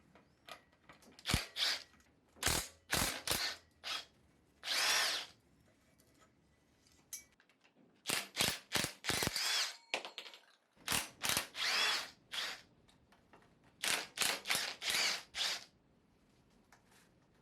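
Power drill run in short trigger bursts, in several quick groups with pauses between them; the longest burst lasts about a second.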